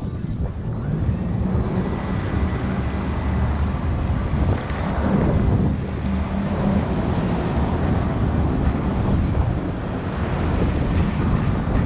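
Jet ski engine running steadily under way, with wind buffeting the microphone and water rushing.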